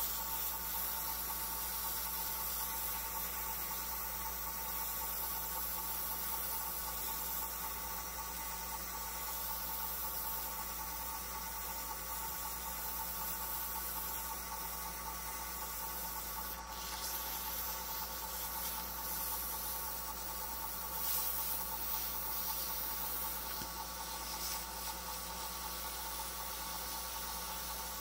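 Abrasive paper hissing steadily against a wooden pen blank spinning on a wood lathe, over the lathe motor's steady hum.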